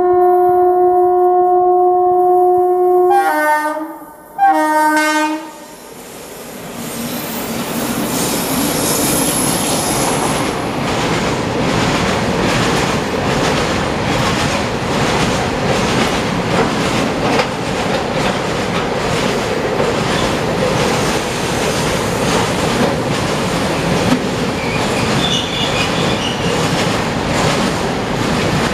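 Indian Railways WAG-class electric freight locomotive sounding its horn: one long blast, then two short ones. Then its train of tank wagons rolls past, wheels clattering steadily over the rail joints, with a brief high squeal about eight seconds in.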